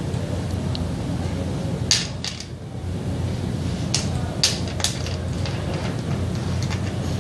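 Plastic colour caps of a Farnsworth-Munsell hue test clicking as they are picked up and set into their plastic tray: a few sharp clicks about two, four and five seconds in, over a steady low hum.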